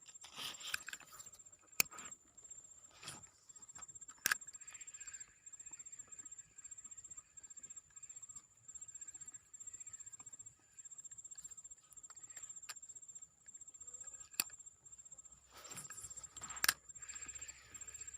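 Insects chirping in a steady, pulsing chorus with a thin high whine, broken by a few sharp clicks.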